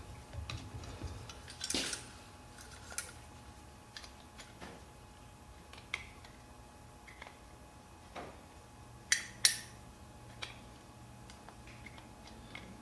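Scattered light metal clicks and taps of a screwdriver working in a carburetor's main jet passage, the jet stuck and not coming out. Two sharper clicks come close together about nine seconds in.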